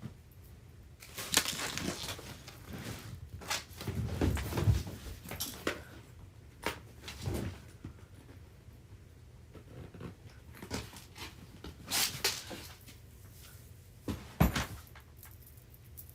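Irregular rustling, bumps and clicks of belongings being handled and moved about, with a heavier thump about four seconds in and a sharp knock near the end.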